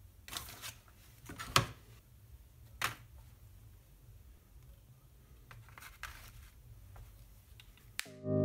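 Handling noises on a paper-covered tabletop: faint paper crinkling and several sharp knocks and clicks as a mirror, a card and a compact digital camera are moved and set down, the loudest knock about a second and a half in. Music starts abruptly near the end.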